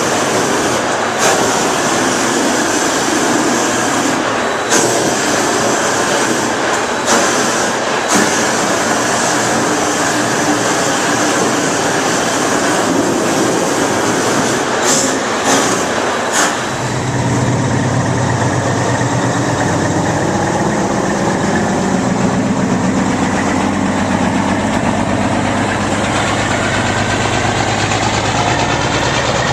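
A large heat gun running with a steady rushing blast as it shrinks the plastic wrap down, broken by a few sharp clicks. About 17 s in it gives way to a low, steady engine idling.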